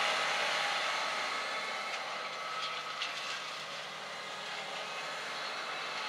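Case IH tractor running steadily as it pulls a tillage implement across a field, the engine and the rattle of the implement growing fainter as it moves away.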